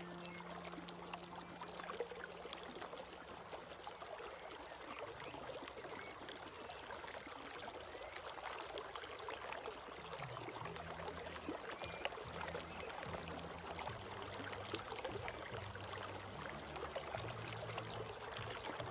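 Small stream babbling and trickling, with soft low held music notes underneath.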